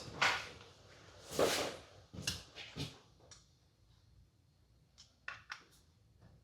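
Small workshop handling sounds as carburetor parts and tools are moved about: two short rustling bursts, then a few scattered light clicks and knocks.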